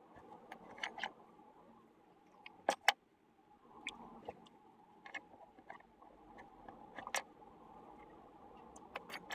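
Lino cutter scraping through soft lino, then small sharp metal clicks and taps as a steel blade is changed in the cutter's handle and blades are set down on the board; the loudest are a pair of clicks close together about three seconds in.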